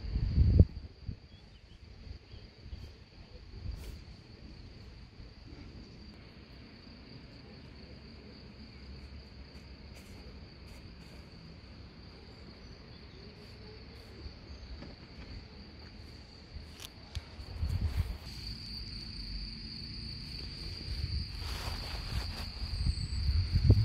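Insects chirring in a steady, high-pitched drone that grows louder after about eighteen seconds. Brief low rumbling noise comes in at the start and twice near the end.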